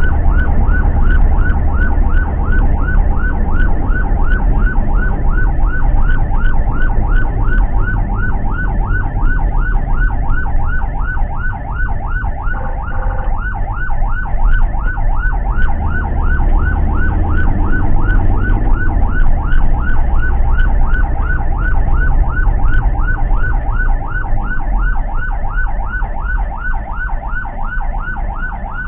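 Ambulance siren in a fast yelp, quick rising whoops about three a second, heard from inside the ambulance's cab over a heavy low engine and road rumble. A brief steady tone cuts across it about halfway through.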